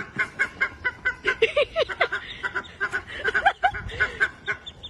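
Domestic fowl calling: a flock of poultry giving many short, rapid calls that overlap one another.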